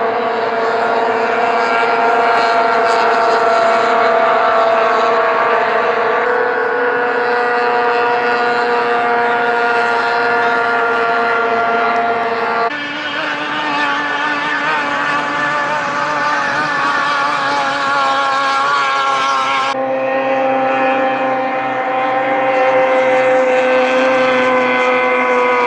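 Racing outboard motors on race boats running hard, each a steady engine note with many overtones that drifts gently in pitch. The sound switches suddenly to a different engine note three times.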